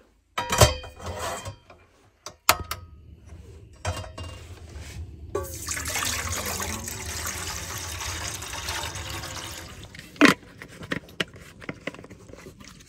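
Water poured from a plastic bottle into a stainless steel pot, a steady pour of about four seconds starting around five seconds in. A few sharp knocks come before the pour, and one louder knock follows it.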